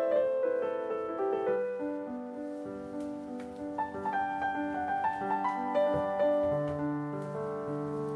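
Background piano music, a melody of changing notes with a lower held note entering in the second half.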